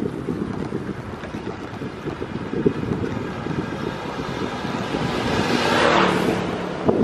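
Wind noise on the microphone of a moving bicycle, with a motorcycle engine growing louder as it approaches, passing close about six seconds in, then fading.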